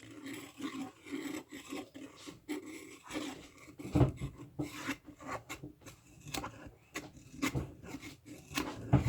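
A chopstick stirring borax into water in a bowl, scraping and rubbing against the bowl in irregular strokes with occasional knocks, the sharpest about four seconds in and near the end.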